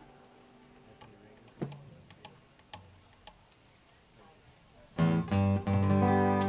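A few faint, isolated plucked notes and clicks, then about five seconds in a bluegrass string band kicks off its next song loudly, with strummed acoustic guitar.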